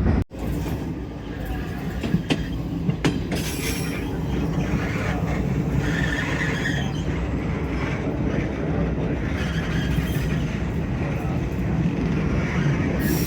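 White Pass & Yukon Route narrow-gauge passenger car rolling along the track: a steady rumble from the wheels, with a few sharp rail clicks in the first few seconds.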